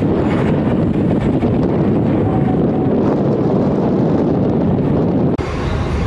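Steady heavy engine rumble from a fire truck and a car ferry, with wind on the microphone. Near the end the sound changes abruptly to a thinner, brighter noise.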